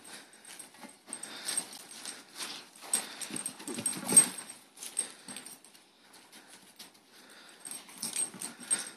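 A young Great Dane playing rough with a large inflatable rubber hopper ball: dog noises mixed with the scuffing and rubbing of teeth and paws on the ball, in irregular bursts, the loudest about four seconds in.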